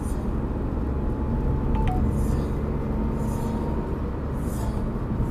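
Steady engine and road noise heard inside a car cruising at around 80–90 km/h, a low rumble with tyre hiss. About two seconds in comes a short two-note beep that steps down in pitch.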